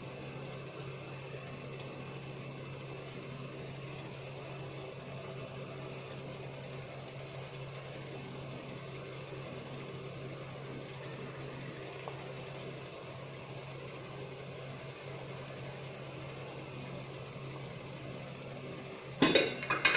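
A steady low mechanical hum, like a kitchen fan or motor running. About a second before the end, a loud clatter of stainless-steel cookware, with the steel lid being handled over the strainer and pot.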